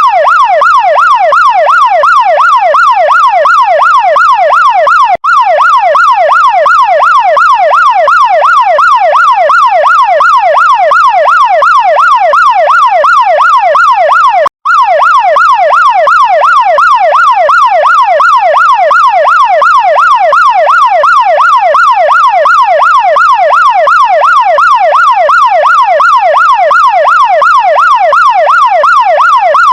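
Chinese fire truck's electronic siren wailing in a fast, even up-and-down sweep, about two to three cycles a second. It cuts out for an instant twice.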